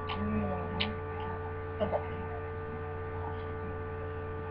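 Steady electrical mains hum, with a few faint clicks and a soft wavering low sound in the first second.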